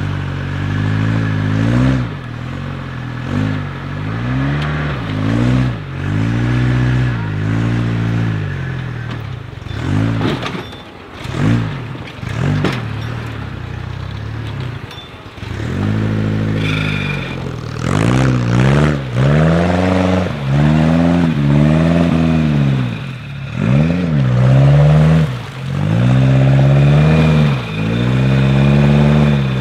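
Off-road buggy engine revving up and down in repeated surges, with knocks and clatter in a lower, quieter stretch near the middle; the revs come quicker and louder in the second half.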